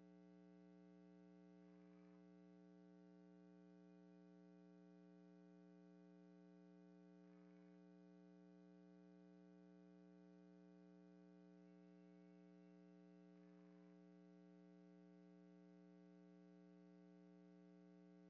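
Near silence: a faint, steady electrical hum, with three faint brief blips a few seconds apart.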